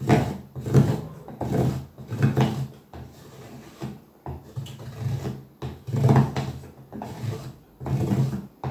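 Round cookie cutter scraped hard across a bar of cooking chocolate, shaving it into curls: a run of scraping strokes, about one or two a second.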